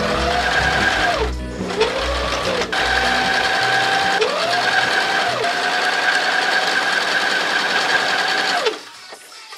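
Janome Sewist 725S sewing machine stitching, its motor whine rising and falling in pitch several times as it speeds up and slows down, then stopping about a second before the end. Background music plays underneath.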